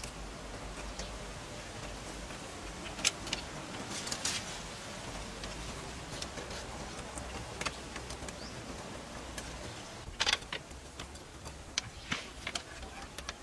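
Scattered light clicks and taps of bamboo slats and wire being handled as the slats are tied onto a wooden frame, over a steady faint background hiss and low rumble.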